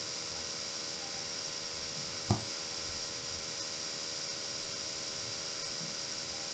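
Steady room tone: microphone hiss with a faint hum, broken once by a short low thump about two seconds in.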